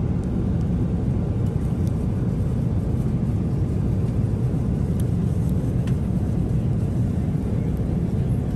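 Steady low rumble of a Boeing 777-300ER airliner cabin in flight, with a few faint clicks.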